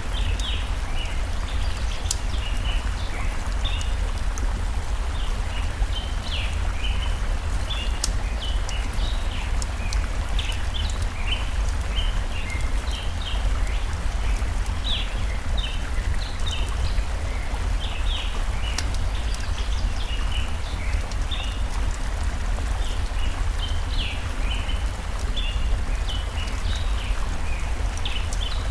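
Forest stream flowing steadily with a low rumble, under constant short chirping birdsong. A campfire gives a few sharp crackling pops.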